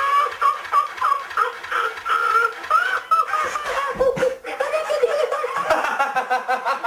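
Tickle Me Elmo plush toy's recorded voice laughing, a high-pitched, rapid giggle that goes on in choppy bursts.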